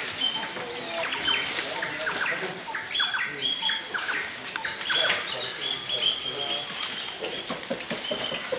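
Black-capped squirrel monkeys chirping and peeping: many short, high chirps and thin, briefly held peeps, overlapping one another throughout.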